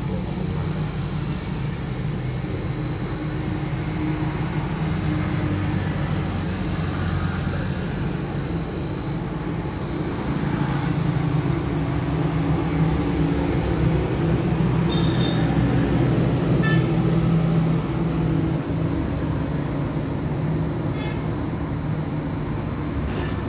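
Refrigeration compressor running with a steady low hum under a thin high whine, pumping through the capillary tube under test while the gauges read its pressure. The hum swells a little for several seconds in the middle.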